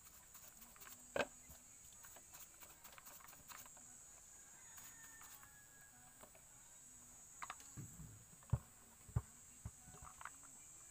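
Faint clicks and knocks from a plastic diesel hand-primer fuel pump and its sediment bowl being handled and brushed clean, with a sharp knock about a second in and a few more near the end. A steady high hiss runs underneath.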